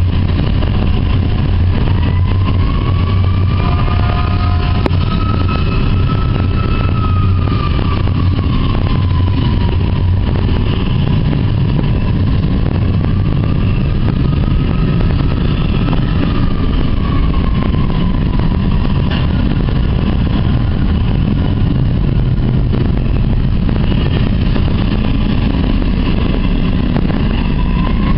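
Double-stack intermodal well cars rolling past close by, a loud steady rumble of steel wheels on rail, with a wheel squeal that slowly rises and falls in pitch several times.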